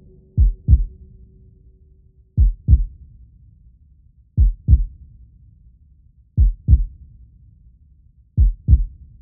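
Cinematic heartbeat sound effect: deep, double lub-dub thumps, one pair every two seconds, five pairs in all, over a faint low rumble.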